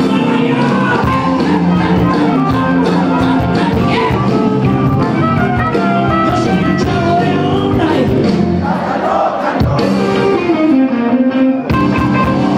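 Rock band playing live and loud: electric guitar and drums, with some singing.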